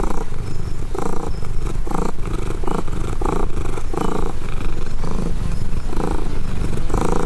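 Domestic cat purring close to the microphone, a steady low rumble that swells and fades about once a second with its breathing.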